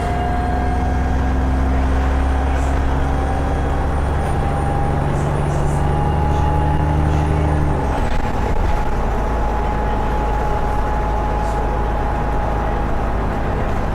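ADL Enviro400 bus engine running under way, with a turbocharger whistle: a thin, steady tone above the engine that rises slowly in pitch. The deep engine note shifts about eight seconds in.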